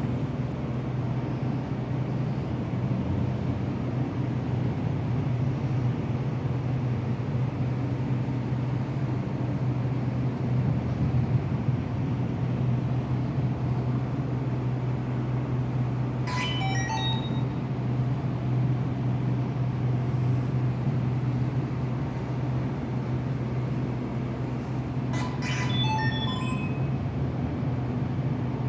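Remote-controlled model with an ESP32-driven sound generator: a steady low hum throughout, broken by two short runs of quick stepping electronic beeps, about 16 seconds in and again about 25 seconds in.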